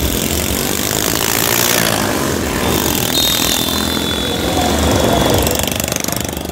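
Motorcycles and scooters passing on a busy road, their engines running together in a loud, steady din. A thin, steady high tone sounds for about two seconds midway.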